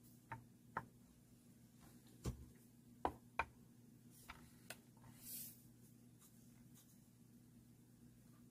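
Faint scattered small clicks and taps, about seven of them over the first five seconds, from handling a small Zippo travel watch, with a brief soft brushing sound about five seconds in; otherwise near silence.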